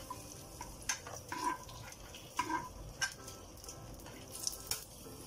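A metal spoon scraping and clinking against a non-stick frying pan while fried cashews and raisins are scooped out, a few scattered sharp clinks over the faint sizzle of hot oil left in the pan.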